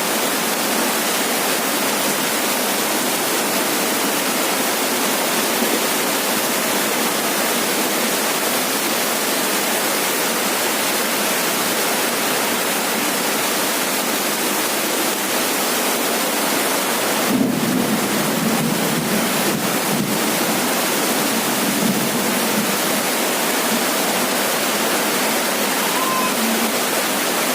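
Heavy rain drumming steadily on a roof, an even rushing hiss. About two-thirds of the way in comes a short louder stretch with a few sharp cracks and a low rumble.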